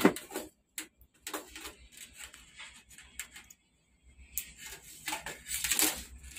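Light clicks, taps and scrapes of aluminium LED backlight strips being handled and set against a TV's sheet-metal back chassis, with a sharp knock right at the start and a busier run of clicks near the end.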